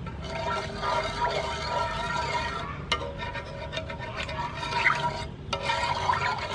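Metal spoon stirring a thin coconut-milk mixture in a nonstick frying pan: liquid swishing, with a few light clicks of the spoon against the pan, over background music.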